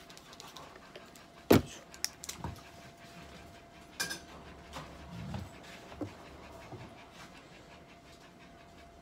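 Handling noises during a subcutaneous fluid drip on a cat: one sharp knock about one and a half seconds in, then a few lighter clicks and taps, over a faint steady tone.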